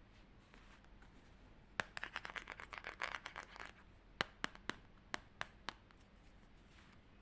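Paper craft pieces being handled: a burst of scratchy rustling and crisp clicks lasting about two seconds, then six sharp separate taps.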